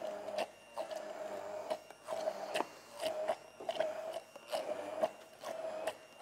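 Hand-held immersion blender puréeing apple sauce in a bowl. Its motor whine comes and goes every half second to a second, with knocks between the runs.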